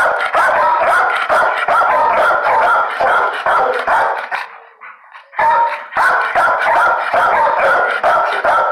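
Dog barking over and over, loud and nearly continuous, with a short lull about five seconds in before the barking starts again.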